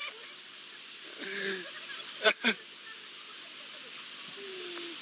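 A group of women laughing and murmuring, with two short loud bursts of laughter close together about two seconds in.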